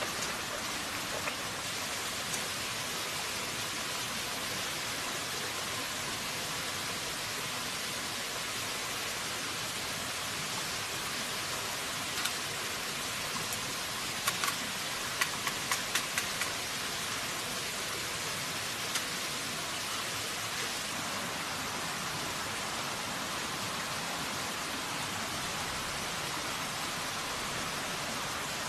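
Steady hiss of a small stream running, with a handful of sharp clicks and knocks about halfway through.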